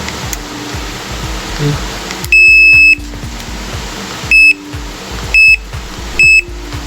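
Control board buzzer of a Union automatic washing machine beeping on power-up: one long beep, then three short beeps about a second apart, over a steady hiss. The beeps show that the board has power again after water and dirt were cleaned out of it.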